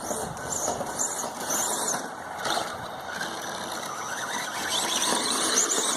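Battery-powered Grave Digger RC monster truck driving on three wheels, its electric motor whining up and down in pitch with the throttle over a steady rush of tyre and ground noise.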